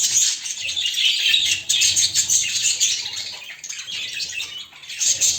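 Budgerigar chicks chirping: a dense, continuous high chatter.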